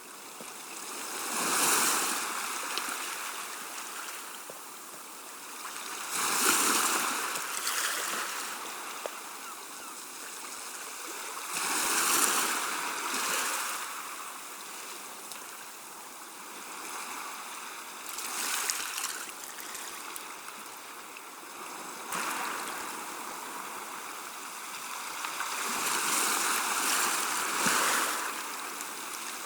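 Gentle sea waves washing onto the shore and drawing back, each wash swelling and fading every five or six seconds.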